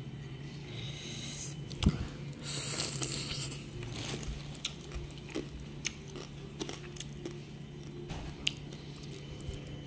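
A person chewing and biting into steamed giant freshwater prawn meat close to the microphone, with scattered small clicks and one sharp knock about two seconds in. A low steady hum runs underneath.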